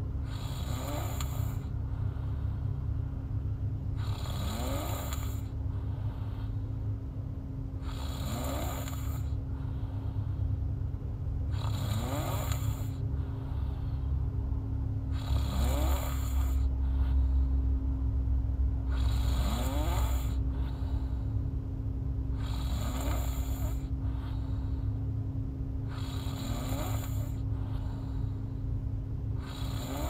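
A woman snoring open-mouthed in her sleep, a snore about every four seconds, each rising in pitch as it goes, over a steady low hum.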